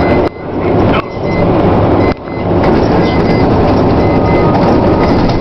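Steady road and engine noise of a car driving, heard from inside the car, with two sudden brief dips in loudness in the first half.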